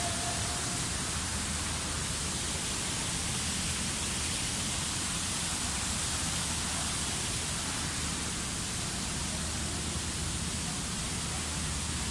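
Indoor waterfall cascading into a fish pond, a steady rushing of water.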